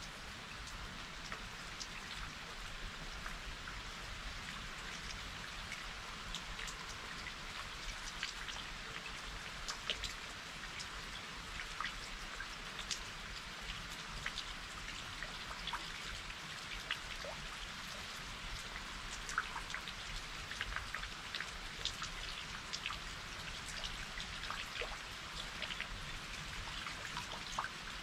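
Steady spring rain falling, an even hiss sprinkled with many separate drop ticks.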